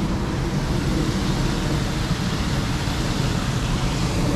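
Steady low rumble with a hiss over it: outdoor background noise with no distinct events.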